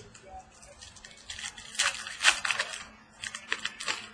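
Crinkling and rustling of trading-card packs and cards being handled and opened, in two bursts of quick scratchy noise, the louder one starting a little over a second in.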